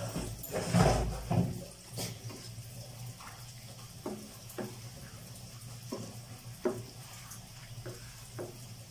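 Spatula stirring fried cauliflower through thick, sticky sauce in a non-stick kadai: soft wet squelches and scrapes. They are denser in the first second or so, then come as separate strokes about once a second.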